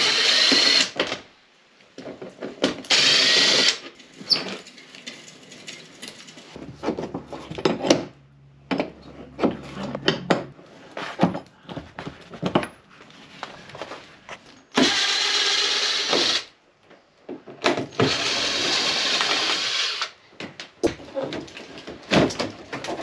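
Power drill running in four short bursts of one to two seconds, taking out the fasteners that hold a motorhome's fiberglass headliner. Knocks and rattles from the panel being handled come between the bursts.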